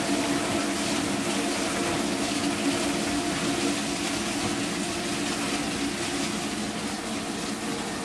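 Vintage KitchenAid Superba KDS-15 dishwasher running its wash: steady spraying and splashing of water inside the tub, beating on the clear plastic sheet that stands in for the door, over a steady hum from the wash motor and pump.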